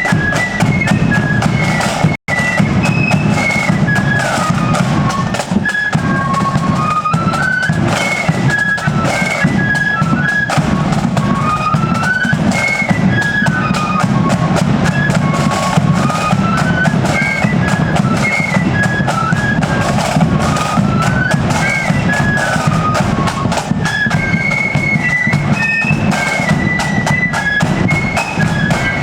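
Marching flute band playing a tune on parade: high flutes carry a stepping melody over snare and bass drums. The sound drops out for an instant about two seconds in.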